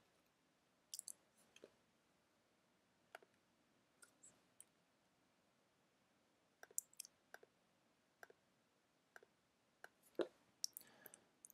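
Faint, scattered clicks of a computer mouse and keyboard, about a dozen short ticks spread through the stretch, some in quick pairs, over near silence.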